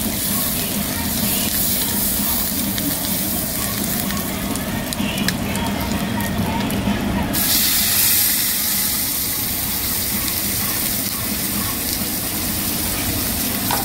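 Fat sizzling on a hot grill stone, then a thick beef steak laid on it sizzling, with the hiss growing brighter about seven seconds in. A steady low hum runs underneath.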